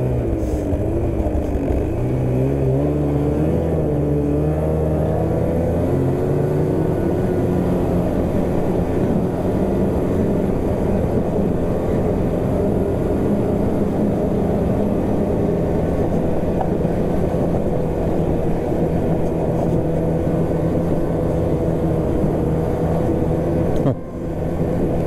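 Two-stroke snowmobile engine under way. Its pitch wavers and climbs as it accelerates over the first several seconds, then holds a steady cruising note. There is a short dip in level near the end.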